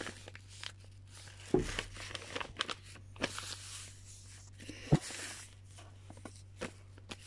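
A sheet of paper being handled and folded on a table: hands sliding over it and pressing creases, with intermittent soft rustling and small clicks. There are two dull knocks, one about a second and a half in and another about five seconds in, over a low steady hum.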